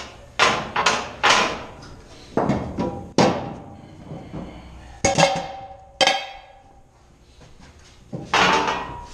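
Metal 16-inch powder cans clanking and ringing as they are shoved and rolled against one another, about eight sharp knocks with a quieter stretch shortly before the end.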